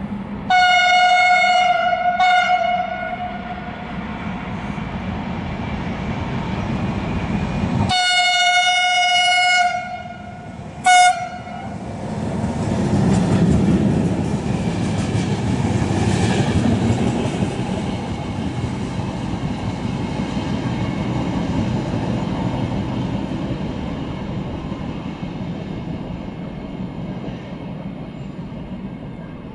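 A train sounds its horn: a blast and a brief second blast, then a few seconds later a longer blast and a short toot. The train then passes with a loud steady rumble of wheels on the rails that swells and slowly fades.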